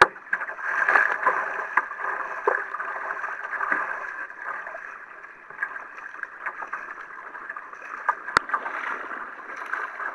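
Water splashing and rushing against a sea kayak's hull as it moves through choppy water, with scattered drip ticks. One sharp click a little past eight seconds.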